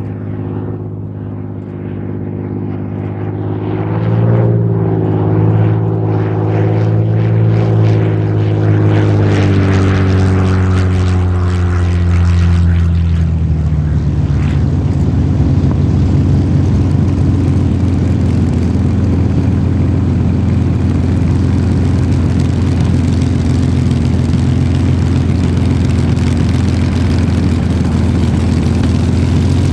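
Supermarine Spitfire's Rolls-Royce Merlin V12 engine running. It grows louder over the first few seconds and its pitch wavers, then about halfway through it settles lower and runs steadily.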